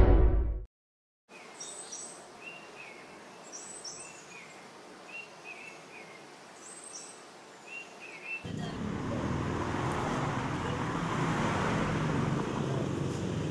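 A bird chirping repeatedly in short two-note calls over faint outdoor ambience, after music cuts off in the first second. About eight seconds in, a louder steady street ambience with a low traffic hum takes over.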